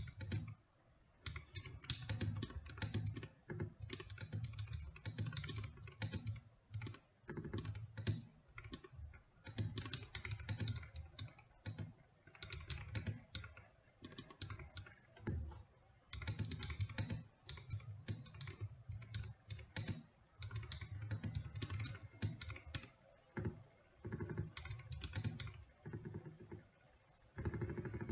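GMK67 mechanical keyboard with Akko V3 Cream Blue tactile switches lubed with Krytox 205g0, typed on in quick runs of keystrokes with short pauses between them.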